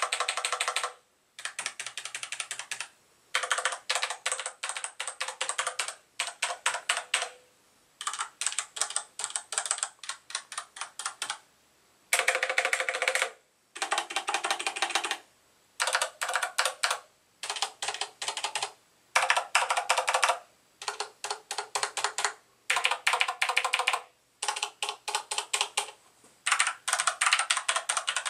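Typing on a Max Keyboard Durandal G1NL mechanical keyboard with Cherry MX Brown switches: runs of rapid keystrokes a second or two long, broken by short pauses.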